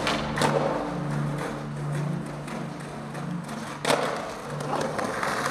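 Skateboard tricks over background music: sharp clacks of the board popping and landing near the start, and a louder landing thud just before four seconds in. A low held musical tone runs beneath and stops shortly before the end.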